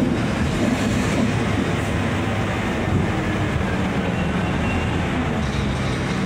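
Scania K280UB bus on the move: its diesel engine runs with a steady low drone over continuous road and body noise.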